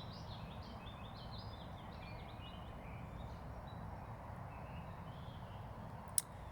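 Distant songbirds singing across a swamp. One bird gives a quick run of high, rapidly changing notes in the first three seconds, then only scattered fainter notes follow over a steady low background hiss. A single sharp click comes near the end.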